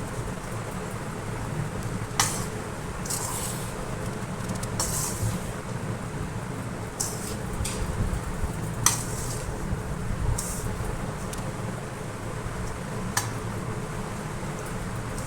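Ground dry-ginger and coriander coffee powder being stirred in a pan: irregular scrapes and clinks of a utensil against the vessel every second or two, over a steady low hum.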